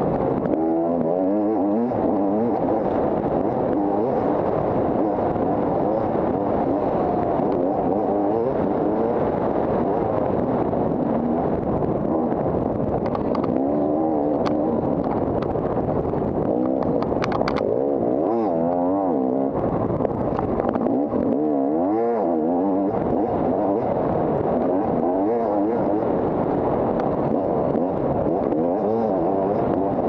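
Dirt bike engine revving up and down continuously as it is ridden hard off-road, with a few sharp clacks about halfway through.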